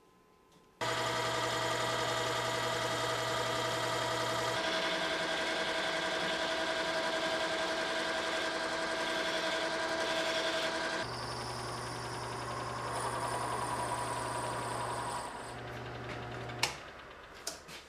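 Metal lathe running steadily with a motor and gear whine while it spins a wooden handle blank being shaped. The sound shifts abruptly twice, and the lathe stops near the end with a sharp click.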